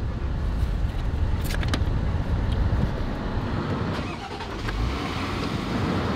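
Land Rover LR4's supercharged V6 and cabin blower giving a steady low rumble inside the parked cabin, with a couple of sharp clicks about one and a half seconds in. The engine goes quiet around four seconds in and is started again about a second later, settling back to idle.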